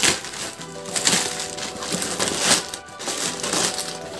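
Plastic courier mailer bag crinkling and rustling in a few separate handfuls as it is pulled open and a cardboard box is slid out, over background music.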